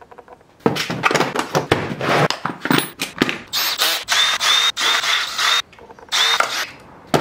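Cordless drill-driver backing screws out of a hoverboard's plastic casing in a run of short bursts, its motor whine held steady for about two seconds near the middle, then one more short burst before it stops.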